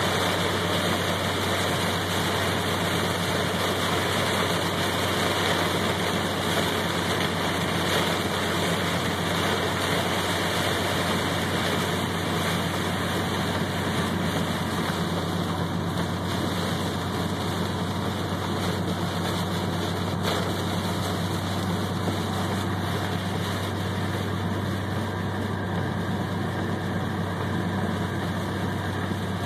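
Heavy rain beating on a car's windshield and roof, heard from inside the cabin, over a steady low drone of the engine and tyres on the wet road.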